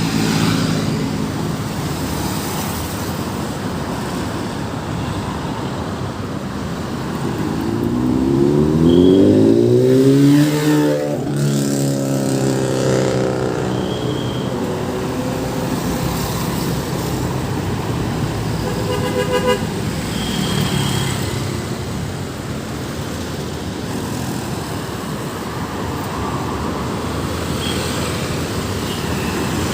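Steady road-traffic noise. About ten seconds in, a vehicle drives past loudly, its engine note rising and then dropping as it goes by. A short horn toot sounds about two-thirds of the way through.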